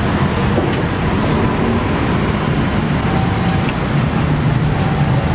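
Steady traffic noise from a busy city road, with cars and motorbikes passing.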